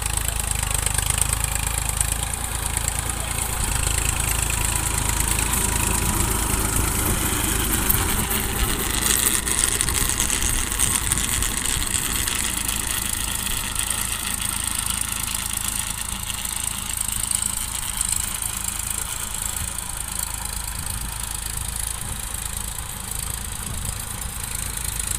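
TAFE 45 DI tractor's diesel engine running steadily while pulling a rotary tiller through dry soil.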